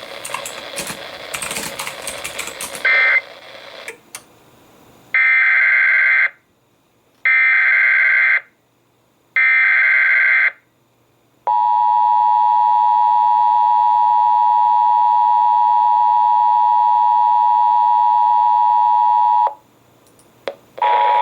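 Emergency Alert System tones relayed by EMNET. After a few seconds of crackling noise come three one-second bursts of warbling SAME header data, a second apart, and then the steady two-tone attention signal held for about eight seconds. The tones announce a flash flood warning.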